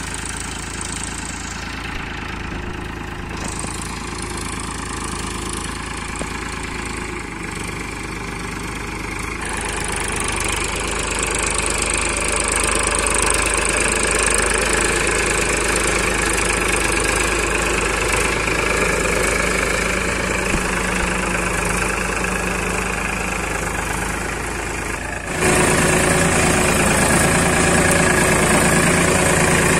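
Powertrac Euro tractor's diesel engine running steadily as it pulls a disc plough. It grows louder about a third of the way through and jumps louder again suddenly near the end.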